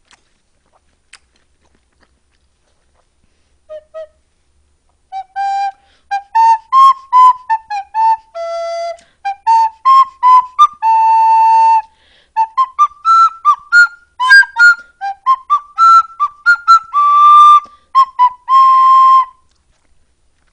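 A whistle-like tune of short, clearly pitched notes with a few longer held ones. It starts with two notes about four seconds in, runs as a continuous melody from about five seconds, and stops shortly before the end.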